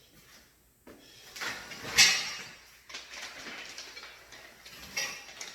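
Rustling and clattering of things being handled, with one sharp knock about two seconds in and a smaller one near the end.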